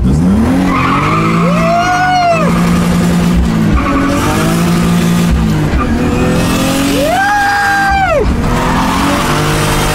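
Drift car's engine revving hard and dropping back several times, with a long high rev about seven seconds in, over tyres skidding. Heard from inside the cabin.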